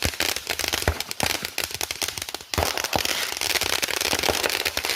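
Firecrackers going off in a dense, rapid crackle of pops, with a short lull about halfway through.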